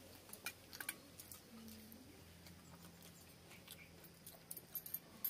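Quiet hand-eating sounds: fingers mixing soaked rice and mashed vegetables in steel bowls and plates, with chewing, heard as soft scattered clicks, a few about half a second in and a cluster near the end.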